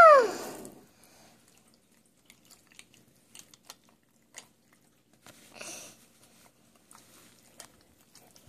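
Soft sticky clicks and squelches of small hands kneading gel-glue and liquid-starch slime in a glass bowl, with a longer squelch about five and a half seconds in. It opens with a short, high cry that falls in pitch.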